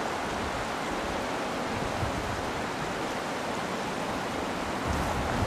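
Steady rushing of flowing water, an even noise without pauses.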